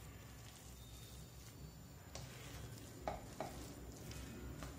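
A spatula stirring instant noodles and vegetables in a nonstick wok, over a faint sizzle of frying, with a few soft clicks and scrapes of the spatula against the pan.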